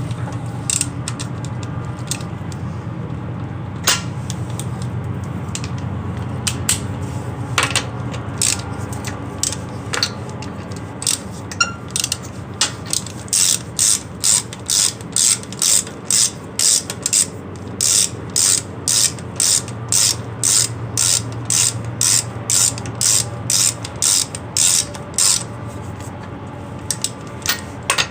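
Hand ratchet clicking as wheel lug nuts are run down. There are scattered clicks at first, then a steady run of about two clicks a second through the second half, over a steady low hum.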